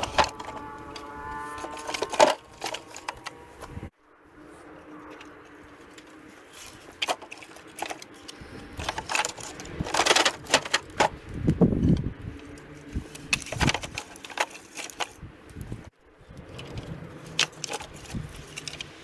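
Irregular sharp knocks and cracks as shakes are split off a dry pine log with a hand splitting tool. The sound cuts off abruptly twice.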